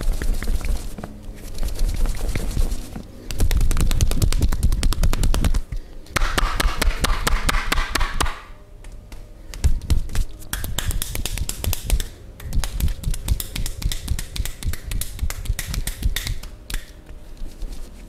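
Hands rapidly slapping and chopping on a man's thigh and knee during a Turkish barber-style massage. The fast, sharp taps come in several runs broken by brief pauses.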